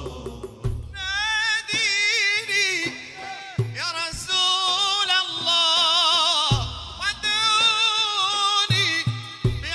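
Male lead singer singing a long, ornamented Arabic devotional melody with heavy vibrato, over occasional low hand-drum strokes.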